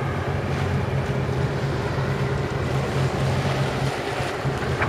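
Wind rumbling steadily on the microphone over the rush of sea water around a sailing yacht under way.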